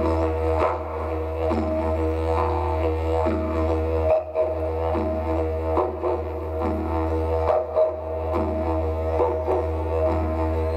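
Didgeridoo playing a continuous low drone, its overtones swelling and shifting in a steady rhythm a little more than once a second. The drone dips briefly about four seconds in and again near eight seconds.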